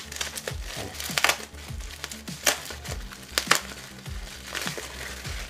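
Plastic bubble wrap crinkling and rustling as it is handled and pulled open, with several sharp crinkles, over background music with a steady beat.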